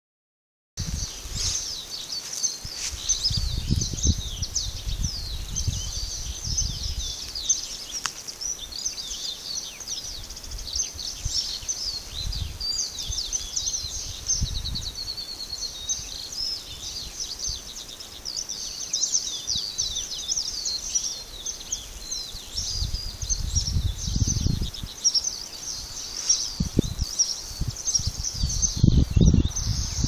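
A dense chorus of many small birds chirping and twittering without a break, with a quick trill about halfway through. Low gusts of wind buffet the microphone now and then, strongest near the end.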